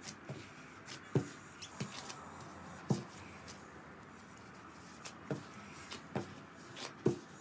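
Yeast dough being kneaded by hand on a marble countertop: short thuds at irregular intervals, about one a second, as the dough is pushed, folded and pressed down on the stone.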